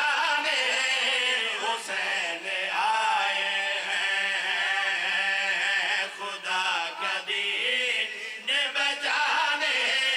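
Several men chanting a devotional refrain together in long, drawn-out sung phrases, amplified through microphones.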